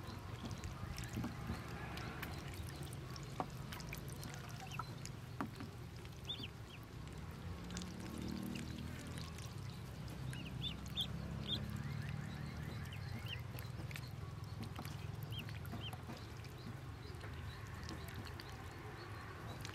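Pekin ducklings peeping in short, high chirps scattered through, more of them in the second half, with small splashes of water as they paddle about in the tub. A steady low rumble sits underneath.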